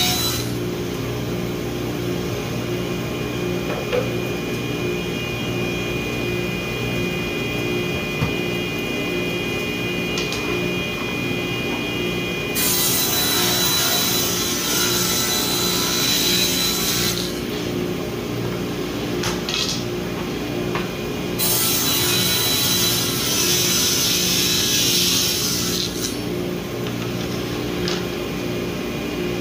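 Table saw running steadily, its blade ripping through a board twice, each cut lasting about four seconds, the first about thirteen seconds in and the second about twenty-one seconds in.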